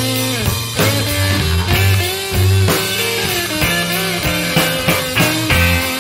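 Blues band playing an instrumental passage with guitar, bass and drum kit, no singing; a lead line bends up and down in pitch over the rhythm.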